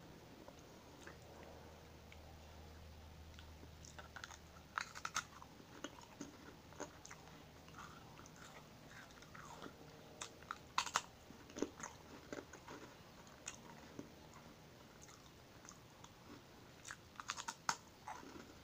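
Crisp Marie biscuits being bitten and chewed close to the microphone: three clusters of sharp crunches, a few seconds in, midway and near the end, with softer chewing crackles between them.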